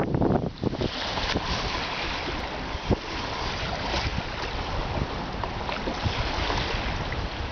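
Wind buffeting the microphone over choppy water, with small waves lapping against the hull of a small boat and an occasional sharper slap.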